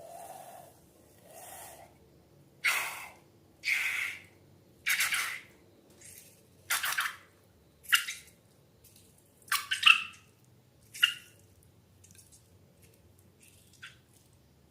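Wet slime squelching as it is handled, a run of short squishy squelches about one a second, then a few sharper wet smacks.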